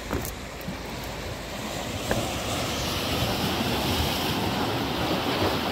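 Sea waves washing against a rocky shore, the surge swelling about two seconds in, with two light knocks, one at the start and one about two seconds in.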